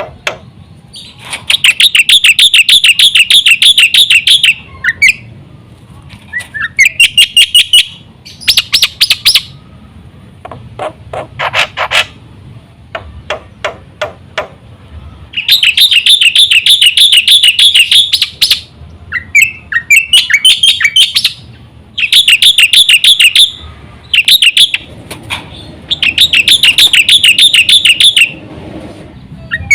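Black-winged myna (jalak putih) singing loudly: bouts of a few seconds of fast repeated harsh chattering notes, with short runs and single clicky notes between the bouts.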